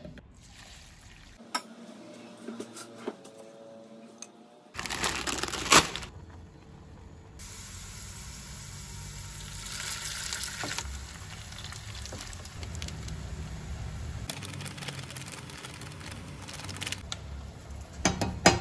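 Kitchen cooking sounds across several short cuts: a clattering burst, then a steady hiss of water simmering and boiling as noodles are stirred in a steel pan and a pot of broth bubbles. Near the end come a few sharp snips as greens are cut with kitchen scissors over the pot.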